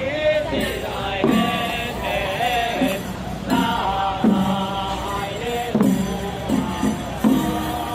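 Temple procession music with a group of voices chanting in a steady rhythm over held, pitched tones.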